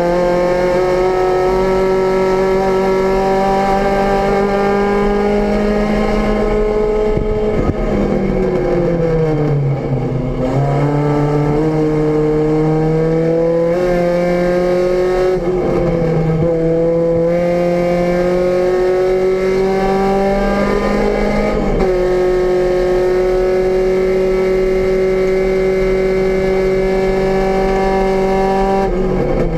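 VW Rabbit GTI race car's four-cylinder engine heard from inside the cabin under racing load. The revs climb slowly, drop sharply and climb again several times, then hold steady for the last several seconds.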